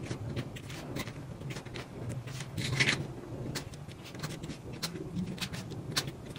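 Rhinestone painting pen tapping resin rhinestones onto the sticky canvas: a string of light clicks with rustling of the plastic cover film, and a louder rustle about three seconds in.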